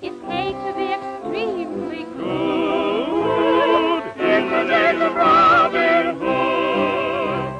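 Operatic-style singing with a strong vibrato over an orchestral accompaniment, on a thin early-1930s soundtrack recording.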